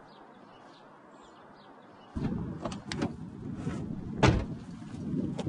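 Someone getting into a car: a low rustling and bumping starts about two seconds in, with several clicks, and a heavy thud comes about four seconds in as the car door shuts.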